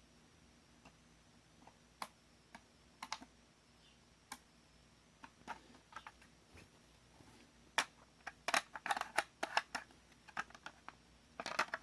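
Small, sharp clicks and taps of something being handled: sparse at first, then a quick, irregular run of them over the last four seconds.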